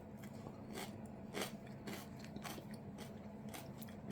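Close-up chewing of a bite of raw Sugar Rush Stripey pepper: faint, irregular crunches about every half second.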